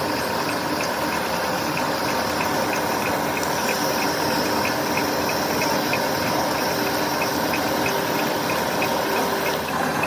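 Steady metalworking machinery noise, an even hiss-like running sound, with a light tick repeating a couple of times a second.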